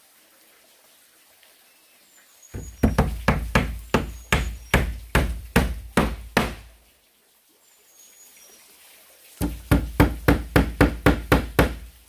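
Hammer blows on wood in two runs. About a dozen steady strikes come first, then after a pause of a couple of seconds a quicker run of about a dozen more near the end.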